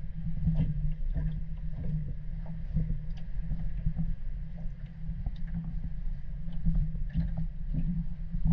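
Muffled water sound picked up by a camera held half underwater: a steady low hum with water lapping and many small irregular knocks against the camera.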